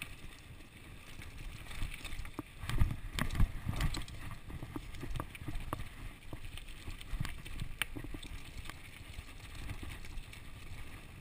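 Ellsworth Evolve mountain bike being ridden fast over a dirt singletrack: a steady low rumble of tyres on dirt with scattered clicks, knocks and rattles from the bike, loudest about three seconds in.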